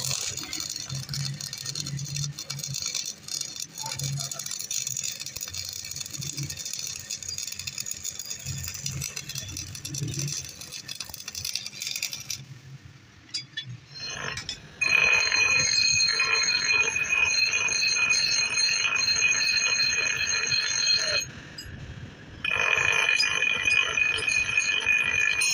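Stick arc welding on steel, crackling steadily for about twelve seconds. After a short lull, a grinding wheel whines high and steady as steel is pressed against it, breaking off for about a second near the end and starting again.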